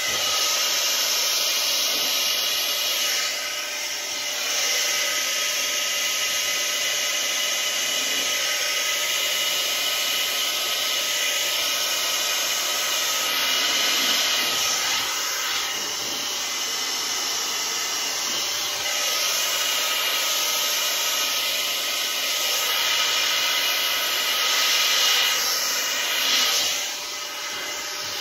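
Handheld hair dryer blowing on its low speed: a steady rush of air with a faint fan whine. It swells a little a few times and drops off near the end.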